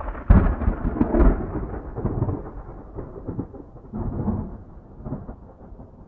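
Thunder: a sharp clap a moment in, then a rolling rumble that swells again several times.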